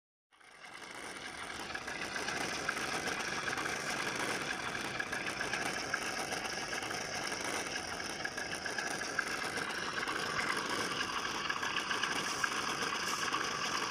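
A Sense Hobby ESS-One engine sound unit playing a simulated V8 idle through its small speaker in the RC jeep. The sound fades in over the first couple of seconds, then runs steadily.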